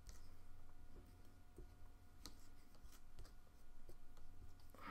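Faint, scattered clicks and light scratches from handling a clay-working tool, over a steady low electrical hum.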